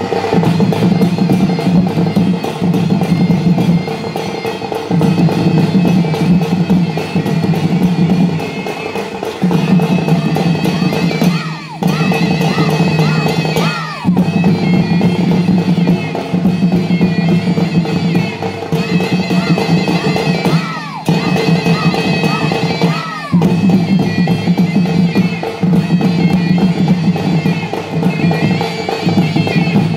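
Sambalpuri folk music: a shrill reed pipe plays a repeating melody over drums and other percussion, with the music dropping out briefly a few times.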